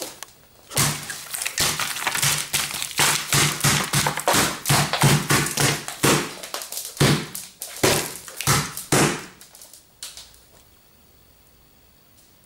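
Roast chicken in a foil tray being smashed by repeated blows: a fast run of wet slaps and thuds, several a second, for about eight seconds, then stopping.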